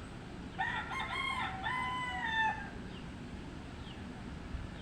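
A rooster crowing once: a single cock-a-doodle-doo lasting about two seconds, starting about half a second in.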